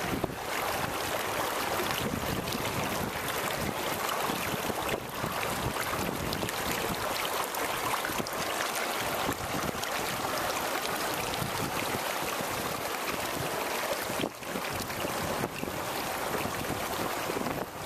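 Shallow river current rushing and splashing over rocks: a steady hiss of moving water close to the microphone.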